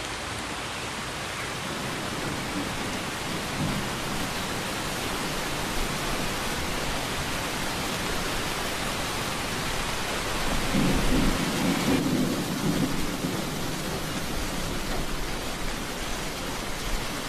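Steady heavy rain hissing down, with a low rumble of thunder a little past the middle.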